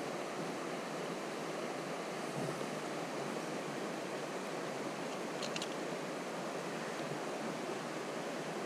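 Steady rush of flowing creek water, an even hiss with no break.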